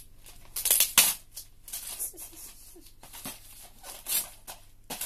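Gift wrapping paper being torn and rustled as a present is unwrapped, with a loud rip about a second in and quieter crinkling and tearing after.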